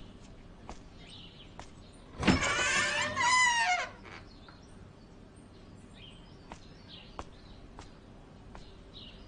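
Wooden double doors pushed open with a loud creak of nearly two seconds, about two seconds in, the creak sliding down in pitch as it ends. Faint bird chirps around it.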